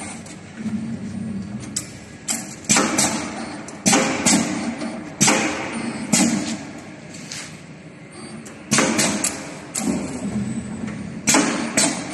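3D CNC wire bending machine at work: a run of sharp clacks, every second or two, each trailing off in a short noisy rush, over a low steady machine hum.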